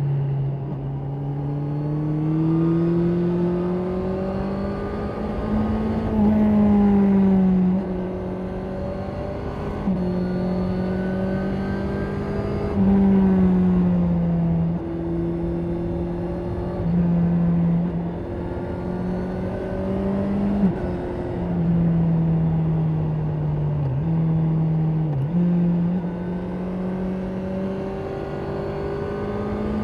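2024 Honda CB650R's inline-four engine and exhaust pulling at road speed. The note rises and falls as the throttle is opened and rolled off, getting louder several times, with a few short dips in pitch.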